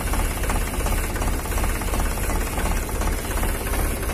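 Iseki NT540F tractor's diesel engine idling steadily with an even, regular pulse, an engine the inspector judges to be running normally.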